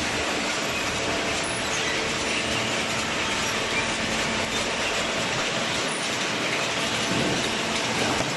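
Paper baling machine running: a steady, dense mechanical din with clattering, without letup.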